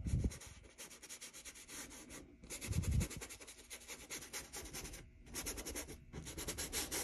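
Bristle paintbrush scrubbing acrylic paint across a stretched canvas in quick, short back-and-forth strokes, blending the paint, with brief pauses. Two low thumps, one at the start and a louder one about three seconds in.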